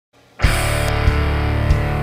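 Music with a steady, heavy beat starts about half a second in, with a low thump roughly every two-thirds of a second.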